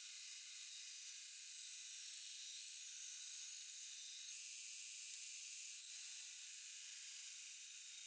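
Steel katana blade being ground on a belt grinder: a faint, steady, thin hiss of the abrasive belt on the blade's bevel, a little louder around the middle.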